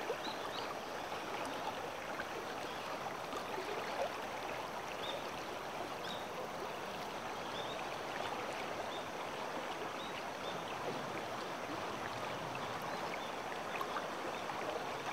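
River water rushing steadily over a shallow riffle.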